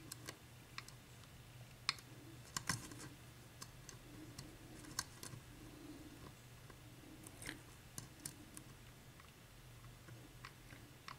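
Faint, irregular small metallic clicks of a lock pick working the pin stacks of a 7-pin Dorma mortise cylinder under tension, the pins clicking as they are lifted and set.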